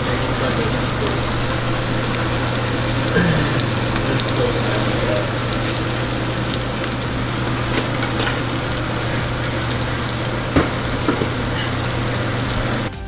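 Pieces of blackfin tuna sizzling steadily in hot melted butter in a skillet, over a steady low hum. Tongs click against the pan a few times.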